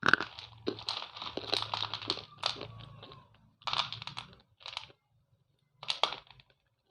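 Slate pencils crunching as they are bitten and chewed: bursts of crisp, gritty crunching, a long one at first and then three shorter ones with short pauses between.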